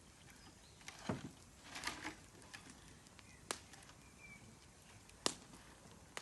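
Wood bonfire crackling: scattered sharp pops at irregular intervals, with a duller thump about a second in followed by a short burst of crackling and rustling.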